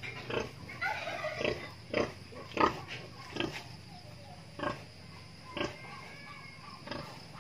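Pigs grunting: about seven short, separate grunts spaced a second or so apart.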